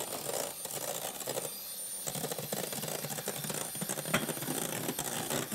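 Electric hand mixer beating zabaione in a metal bowl over a water bath, its beaters rattling against the bowl in quick, irregular clicks, with one sharper clink about four seconds in.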